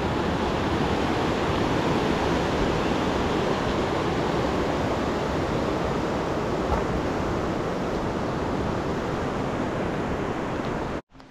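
Loud, steady rush of a mountain creek's flowing water, cutting off suddenly near the end.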